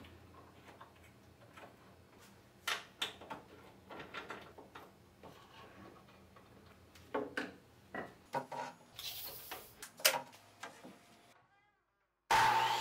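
Scattered light clicks and knocks of MDF strips and small fittings being handled on an aluminum T-slot CNC bed. Near the end a miter saw's motor starts up loudly and keeps running.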